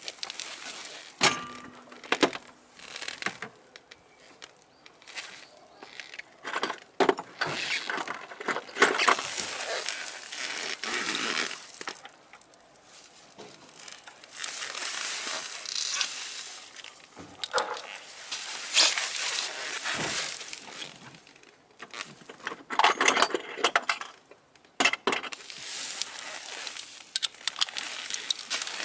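Metal socket wrench clinking and knocking against a bolt under a Daelim Q3 scooter's engine during an oil change, with scattered sharp clicks and rustling handling noise in between.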